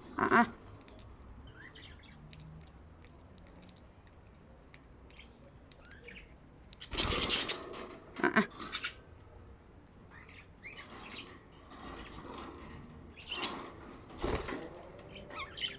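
Pet budgies chirping softly, with a few louder bursts of wing flapping about seven and fourteen seconds in as a budgie takes off from a hand.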